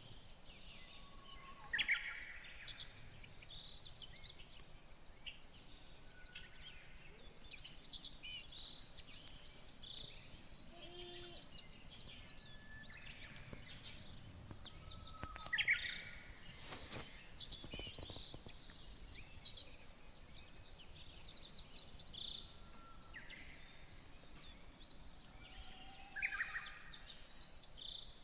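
Wild birds chirping and calling outdoors: many short, varied calls, several birds at once, over a low steady background hiss.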